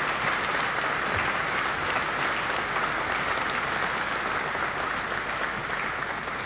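Audience applauding, many hands clapping in a dense, steady patter.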